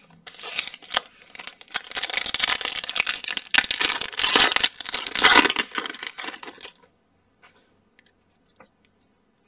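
Foil wrapper of a trading-card pack torn open and crinkled by hand for about six and a half seconds, stopping abruptly, followed by a few faint clicks.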